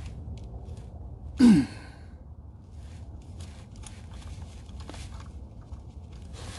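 A man's short breathy exhale or grunt, falling in pitch, about a second and a half in. Faint, irregular clicks come from a ratchet and socket on the oil pan drain plug.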